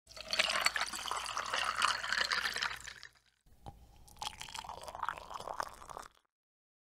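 Liquid pouring and splashing in two stretches of about three seconds each, with a short break between them and a sudden stop.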